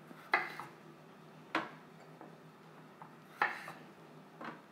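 New potatoes dropped one at a time into a metal roasting tin: four separate knocks a second or two apart, the last one faint.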